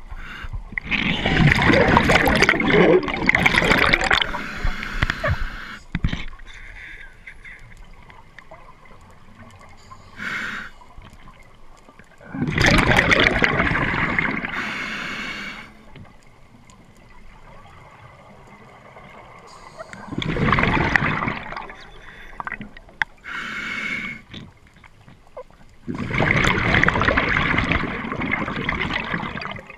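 Scuba regulator exhaust: bubbles from a diver's exhaled breath rushing and gurgling past the underwater microphone in four long bursts, one per breath, about every seven seconds, with short quieter hisses between them.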